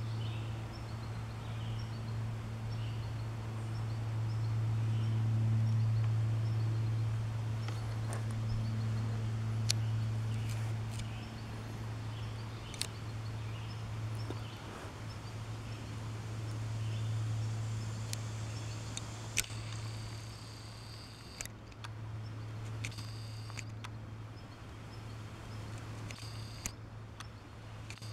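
Outdoor ambience along a wooded track: a steady low hum that swells and fades, with faint high chirps and a few sharp clicks.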